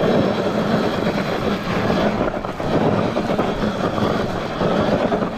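Talaria XXX electric dirt bike spinning a tight donut, its motor driving the rear tyre as it skids round in a circle.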